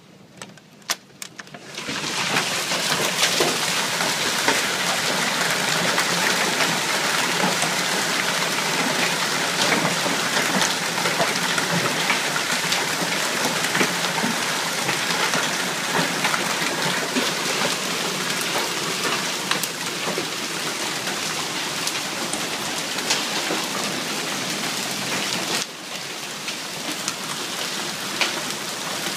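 Hailstones pelting down in a severe storm: a few scattered sharp hits at first, then about two seconds in it becomes a loud, dense clatter of countless impacts with sharper individual cracks standing out. It keeps up steadily, dipping briefly near the end.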